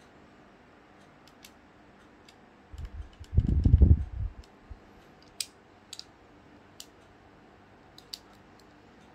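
Scattered light clicks and taps of small tools and screws on an opened MacBook Pro during disassembly. A low rumbling bump of handling, the loudest sound, comes about three seconds in and lasts about a second.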